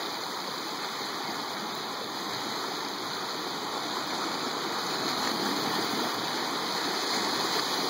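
Ocean surf washing against the shore: a steady rush of water that swells slightly toward the end.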